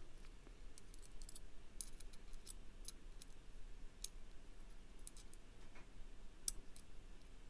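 Light, irregular clicks and taps of small metal pocket-knife parts being handled as the stop pin is fitted during reassembly.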